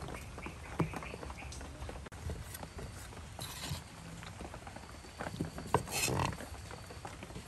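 Cleaver knocking on a wooden chopping block as raw pig liver is sliced, in irregular knocks. About five to six seconds in comes a louder scraping and clatter as the slices are pushed off the block into a plastic basket.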